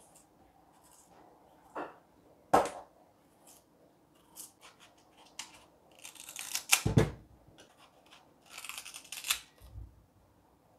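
A small knife paring the skin off a guava in short scraping strokes, with a sharp knock about two and a half seconds in. Past the middle the knife cuts through the fruit with a crisp crunch and a thud onto the cutting board, the loudest moment, then more crunching cuts.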